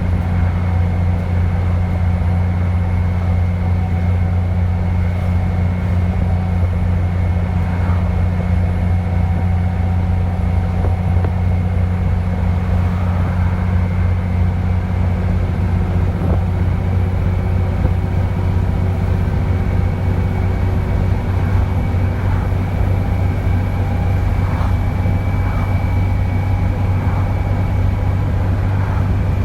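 Dennis Trident 2 double-decker bus's diesel engine running steadily under way, a low drone with a thin, steady turbocharger whistle above it that rises slightly a little past the middle.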